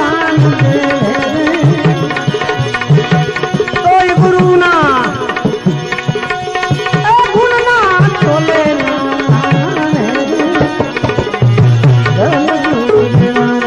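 Devotional bhajan music in an instrumental passage: hand drums keep a steady rhythm under a melody with sliding notes.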